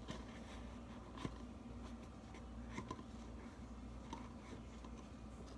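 Faint rubbing and scraping of a paper towel wiping a small plastic bottle, with a few soft ticks as it is handled, the clearest about a second in and near the middle.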